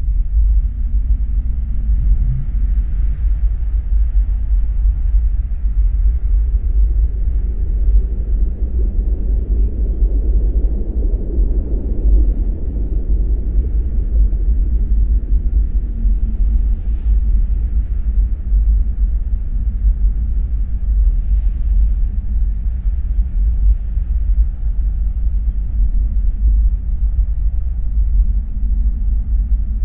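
A deep, steady rumble that swells a little around the middle.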